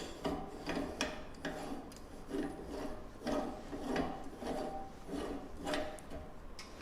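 Metal parts of a meat grinder head being fitted and screwed together: the locking ring turning on the threads over the plate and knife. It makes a series of short metallic scraping strokes, some with a faint ring.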